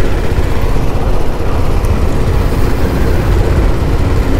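A motorcycle on the move: steady, loud wind rumble and road noise over the engine's hum.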